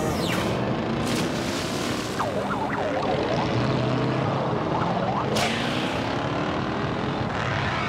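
Cartoon sound effects of a submarine moving through rough water: a steady engine drone under rushing, churning water, with two louder rushes about a second in and about five and a half seconds in.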